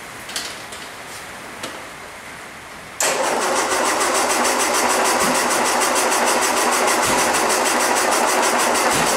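Starter motor cranking the freshly rebuilt four-cylinder petrol engine of a 1961 Land Rover, beginning about three seconds in with a fast, even rhythm. The engine is trying to bark but doesn't pick up and run.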